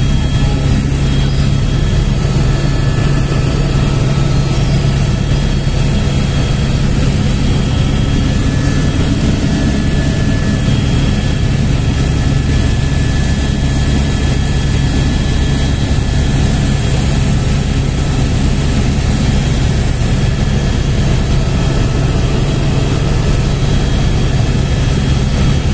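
Helicopter in steady forward flight, heard from inside the cabin: a loud, unbroken engine and rotor drone with a strong low hum and a thin high whine.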